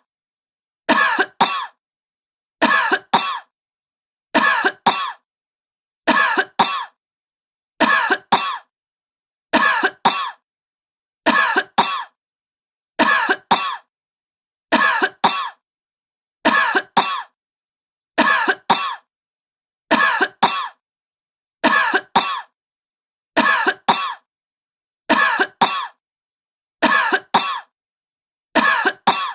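A sick woman coughing in pairs, a quick double cough about every second and three quarters, repeated identically with dead silence between: a looped recording.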